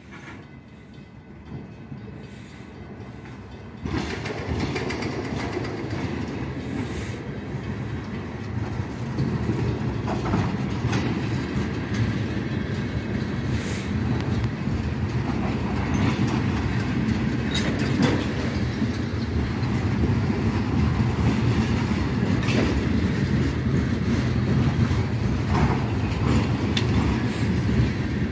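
A freight train's tank cars rolling past: a steady rumble of steel wheels on the rails, with scattered clicks and clanks. It gets suddenly louder about four seconds in and keeps building as the cars come close.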